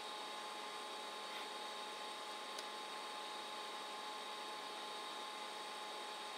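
Room tone: a steady hiss with a faint constant electrical hum and thin high whine, and one faint click about two and a half seconds in.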